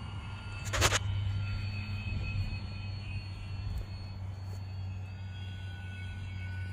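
RC model airplane's motor and propeller running steadily in flight, a constant drone with a thin high whine. A single sharp knock about a second in.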